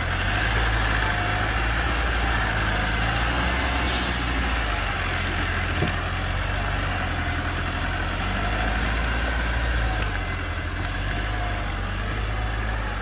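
Heavy diesel vehicle engine running steadily, with a short burst of hiss about four seconds in.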